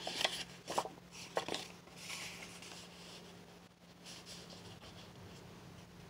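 Cardstock tag rubbing and sliding against paper as it is tucked back into a paper pocket, with a few light taps in the first second and a half, then fainter paper handling.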